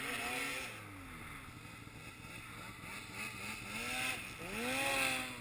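Snowmobile engines revving in deep snow, their pitch rising and falling several times, with the loudest rev swelling up and dropping away near the end.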